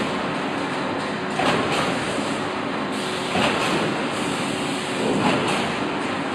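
Steel coil cut-to-length line running as the strip unwinds from the coil: a steady mechanical noise with a surge recurring about every two seconds.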